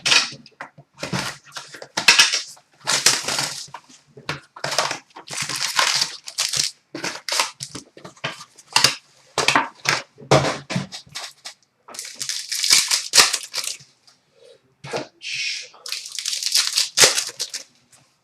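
A hockey card box and its foil packs being torn open by hand: irregular bursts of ripping, crinkling and crumpling wrapper and cardboard.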